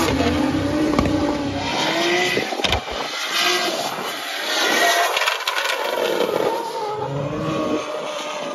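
Nissan Silvia S15 drift car with a swapped Toyota 2JZ straight-six, revving hard with its pitch rising and falling as it drifts, rear tyres spinning.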